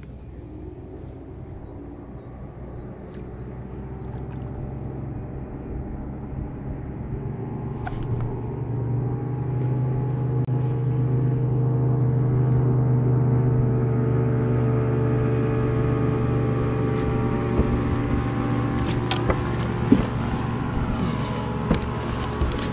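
A boat motor running with a steady hum that grows louder over the first dozen seconds and then holds level. A few light clicks and knocks sound over it.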